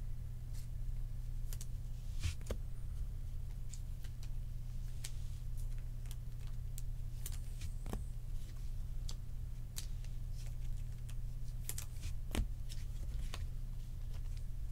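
Topps Chrome baseball cards handled and flicked through by hand, giving scattered light clicks and snaps, sharpest about two, eight and twelve seconds in. A steady low hum runs underneath.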